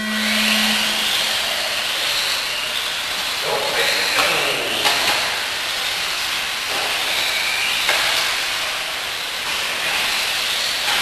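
Several electric RC off-road buggies racing on a dirt track: their motors whine, rising and falling in pitch as they accelerate and slow, over a steady hiss, with a few short knocks. A steady low tone sounds for about the first second.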